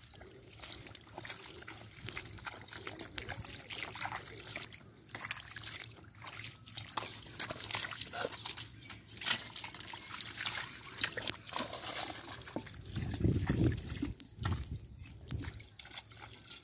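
Hands splashing and sloshing in shallow muddy water, with many short splashes and trickles as the mud is groped through. Two heavier low thuds come about thirteen and fifteen seconds in.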